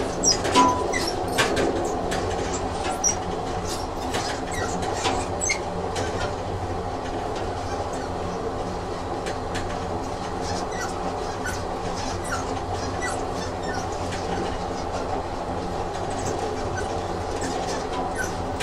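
Train sound effect: a train running along the rails, a steady hum with scattered light clicks from the wheels, a little louder in the first second or so.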